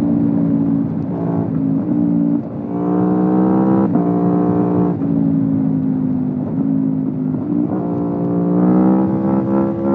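Aprilia Tuono V4 Factory's V4 engine through an Akrapovic exhaust, under throttle. Its pitch holds or sags, then climbs several times, with sharp breaks in the note about every second or two that sound like gear changes.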